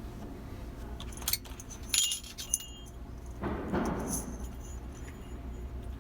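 Small metal hardware of a crane-game claw being handled: a few light metallic clinks and jingles, loudest about two seconds in, then a brief rustling scrape a little after the midpoint.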